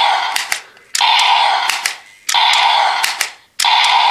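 Toy DX Attache Shotgun playing its electronic shotgun-blast sound effect through its small speaker. The blast repeats about every 1.3 seconds, and each one starts suddenly and fades away. Before each blast comes a quick double click of the plastic dummy pump being racked.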